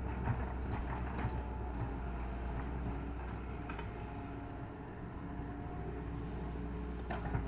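Doosan 140 wheeled excavator working: the diesel engine runs with a steady low hum under level whining tones, and a few short clanks come in the first second or so, around four seconds in, and near the end.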